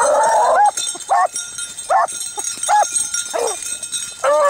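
Beagles baying while hunting a rabbit: one drawn-out bawl at the start, then a string of short, sharp bays about every half second to a second. Hounds bay like this when they are on a rabbit's scent.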